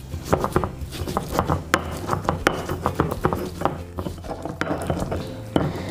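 Stone pestle crushing and grinding garlic cloves with salt and spices on a flat stone mortar (Indonesian ulekan and cobek): repeated irregular knocks and scrapes of stone on stone, several a second.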